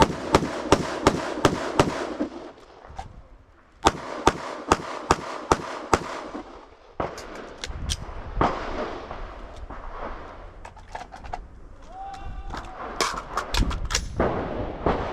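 Rifle-to-pistol transition drill: a steady string of about six rifle shots, a pause of about a second while the shooter transitions, then a second even string of about six pistol shots. Fainter scattered shots follow.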